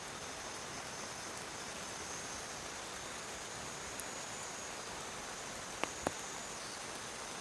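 Steady hiss of heavy rain, with three sharp drop strikes close to the microphone about four and six seconds in. A faint high steady tone runs through it and stops near the end.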